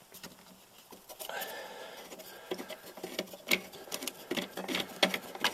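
Quick, irregular metal clicks and taps from work at a snowmobile's rear track adjuster as the track is slackened off. Sparse at first, then coming thick and fast from about halfway.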